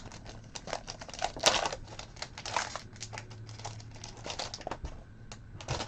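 Glossy Prizm basketball trading cards being flipped through by hand: an irregular run of soft flicks, slides and rustles of card stock.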